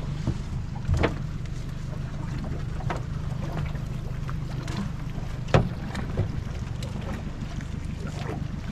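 Outboard motor of an aluminium tinny idling steadily, with a few sharp knocks as the crab pot is handled against the hull; the loudest knock comes about five and a half seconds in.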